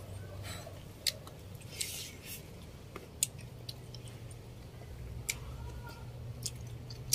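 Cooked crab shells being picked and cracked apart by hand, a scatter of short sharp clicks, with some chewing over a low steady hum.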